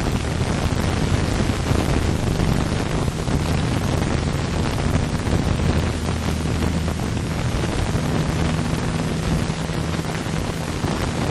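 A Cessna 172's four-cylinder engine and propeller running at high power on the takeoff run, heard inside the cabin as a steady, loud drone with a rushing noise over it.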